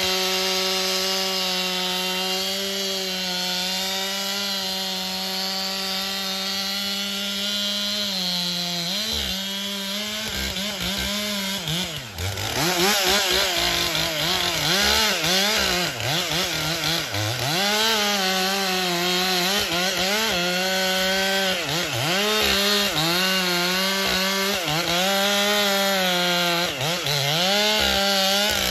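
Stihl MS 400 two-stroke chainsaw cutting through a pine's root plate at full throttle. The engine note holds steady at first, then from about eight seconds in it dips and recovers again and again as the chain is loaded in the wood.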